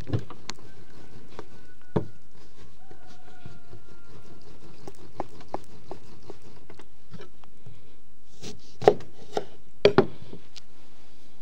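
Kitchen handling sounds while food is prepared: scattered knocks and taps, with a louder cluster of knocks about nine to ten seconds in, over a steady low background hum.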